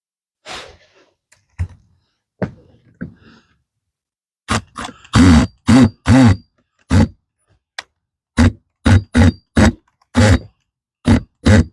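Impact driver driving hinge screws in short trigger bursts: a few faint knocks and a brief burst in the first few seconds, then about a dozen loud bursts in quick succession.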